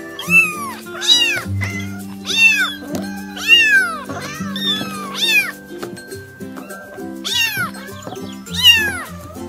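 Several young kittens meowing again and again, high calls that rise and fall, coming in quick succession and sometimes overlapping. Background music plays under them.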